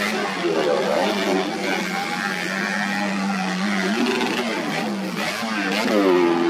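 Modified underbone racing motorcycle engines running together. One holds a steady pitch, and engines rev up and down in the later seconds.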